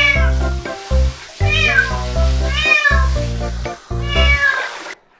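A wet cat meowing loudly and repeatedly in protest at being bathed: about four drawn-out meows, over background music, until the sound cuts off abruptly near the end.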